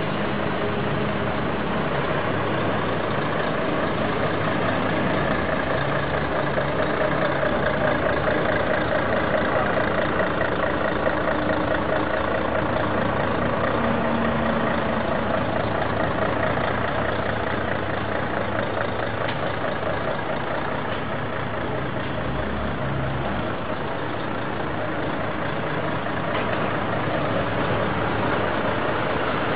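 A heavy vehicle's engine running steadily at an even, unchanging pitch.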